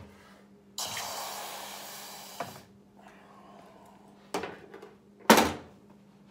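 A freshly poured silver bar, still hot, quenched in a bowl of water: a sudden loud hiss about a second in that fades away over nearly two seconds. Later come two sharp knocks, the second the loudest.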